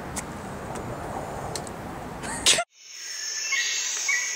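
Steady outdoor background noise, then a short loud burst and an abrupt cut about two and a half seconds in. After the cut comes high, rhythmic chirping of birds and insects.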